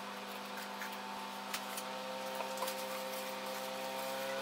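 A wooden spoon stirs caramel in a stainless steel pot as baking soda foams it up, giving a few faint ticks and scrapes over a steady machine hum.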